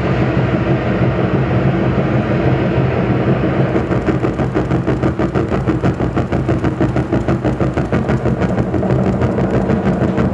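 Improvised electronic music: a dense low drone with several steady held tones. About four seconds in, a fast, even pulsing rhythm starts over it.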